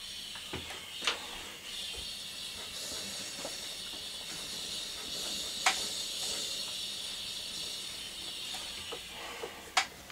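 Small jeweller's gas torch hissing steadily as its flame heats a patinated metal cross, with a few sharp clicks.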